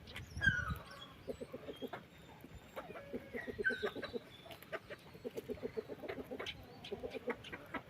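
Chickens clucking in quick runs of short notes, with a few higher chirps among them.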